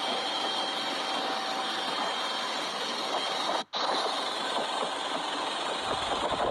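Steady engine noise with a thin high whine, broken by a sudden brief dropout about three and a half seconds in. A low rumble comes in near the end.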